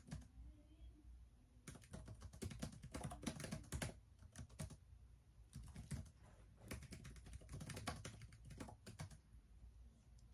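Typing on an HP laptop keyboard: two quick runs of faint key clicks, the first starting about two seconds in and the second about halfway through, with short pauses between.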